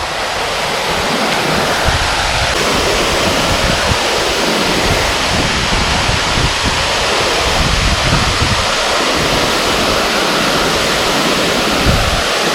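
Steady rushing of a small creek waterfall, with some wind rumbling on the microphone.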